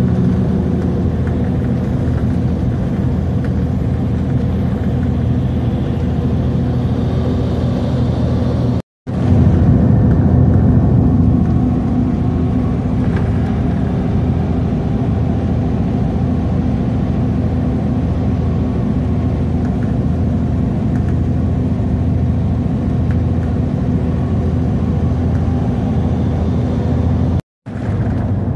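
Intercity coach running at highway speed, heard from inside the passenger cabin: a steady low drone of engine and road noise. It cuts out abruptly for a moment twice, about a third of the way in and near the end, where the recording is spliced.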